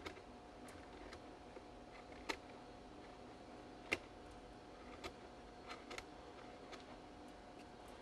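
Kitchen knife paring partly set plaster of Paris: faint, irregular clicks and scrapes as the blade takes off shavings, with two sharper clicks a little after two seconds and near four seconds in.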